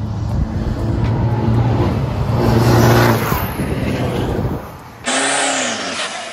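A diesel pickup truck accelerates at full throttle down a drag strip. Its engine note is loudest about three seconds in, then fades as it runs away. After a cut about five seconds in, another diesel pickup's engine revs up and back down once.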